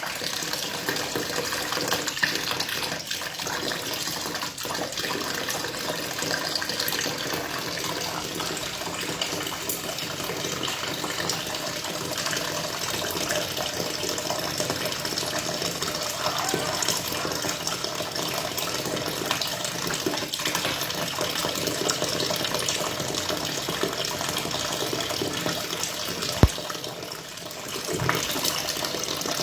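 Water running steadily into a washing machine tub as it fills, with one sharp knock near the end.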